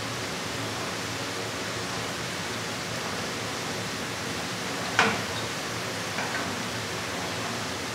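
Steady hiss of scallops and greens sizzling on a hot flat-top teppanyaki griddle. A single sharp clink comes about five seconds in, with a fainter one a second later.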